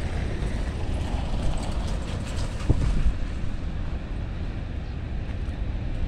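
Wind buffeting the microphone in a steady low rumble, with surf breaking in the background.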